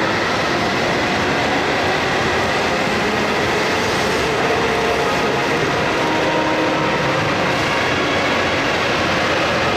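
Hokuriku Shinkansen train moving along the station platform: a steady, even running noise of its motors and wheels on the rails, holding at one level throughout.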